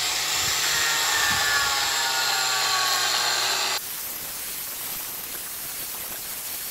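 Handheld angle grinder with a diamond profiling wheel grinding a round-over (bullnose) into the edge of a travertine paver: a loud, steady grinding with a faint whine. About four seconds in it drops noticeably quieter to a steady hiss.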